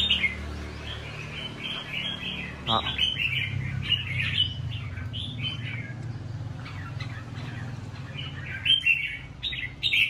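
Caged red-whiskered bulbuls chirping and singing in quick runs of short, high notes, loudest near the end.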